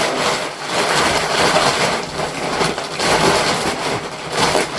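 Plastic packaging bag rustling and crinkling as it is handled.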